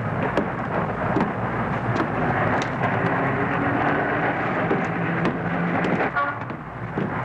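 Steady heavy rain noise with low rumbling, like a thunderstorm, with scattered sharp clicks.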